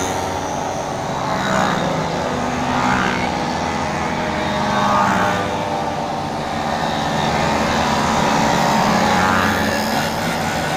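A long column of vintage two-stroke mopeds riding past close by. Their small engines buzz together, swelling several times as groups go by.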